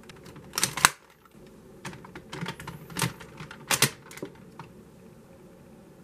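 Sharp plastic clicks and taps from Kamen Rider K-Touch and Decadriver toys being handled and pressed, in loose clusters with short gaps between them.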